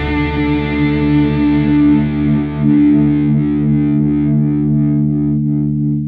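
Rock music ending on a distorted electric guitar chord: the drums stop right at the start and the chord is left to ring, slowly fading out.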